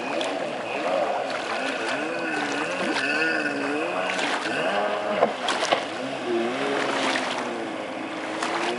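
Kawasaki X2 stand-up jet ski's two-stroke engine, its pitch swinging up and down over and over as the throttle is worked through turns. A few sharp slaps from the hull hitting the water are also heard.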